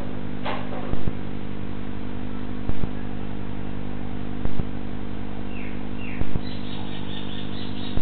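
Steady electrical hum on a security-camera recording, broken by a sharp click about every second and three-quarters. Past the middle, birds chirp: two short falling calls, then a quick run of high notes near the end.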